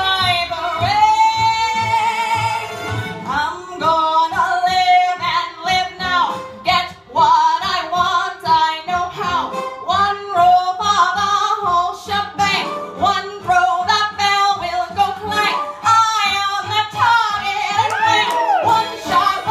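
Woman singing a show tune live with instrumental accompaniment, holding a long note with wide vibrato in the first few seconds, then singing on in short phrases.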